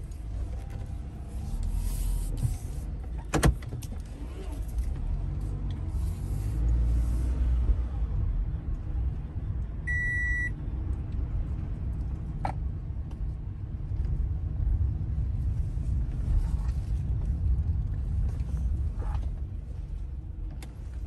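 Toyota Camry cabin noise while driving: a steady low engine-and-road rumble. A sharp click sounds about three and a half seconds in, and a short electronic beep about ten seconds in.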